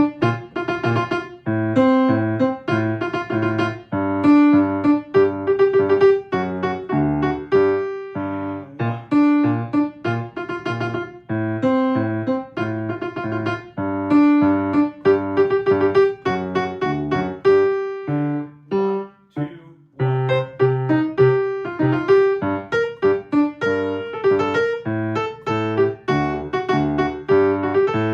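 Piano playing the alto line of a choral arrangement at a slow practice tempo, one note after another with lower notes underneath, pausing briefly about two-thirds of the way through.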